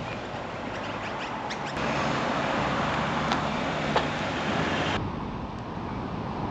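Road traffic and wind noise heard from a moving bicycle: a steady rushing hiss with a faint engine hum. It gets louder about two seconds in, with a single sharp click a couple of seconds later, and drops off abruptly near the end.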